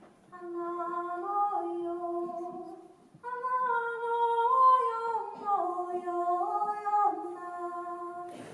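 A woman singing unaccompanied into a microphone, heard through a PA loudspeaker. She sings two phrases of long held notes that step and slide between pitches; the second phrase starts higher about three seconds in and works its way back down.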